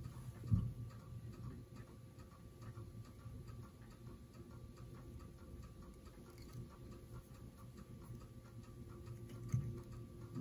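Faint, even ticking over a steady low hum, with a short low thump about half a second in and another near the end.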